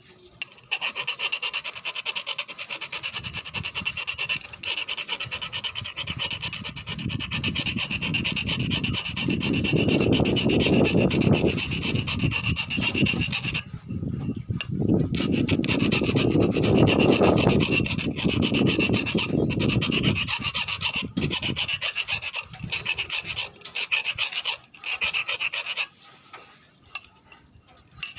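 Hand smoothing of a cotton candy machine's spinner head: continuous rasping, scraping strokes of an abrasive working the part. The rasping breaks off briefly about halfway through and again near the end.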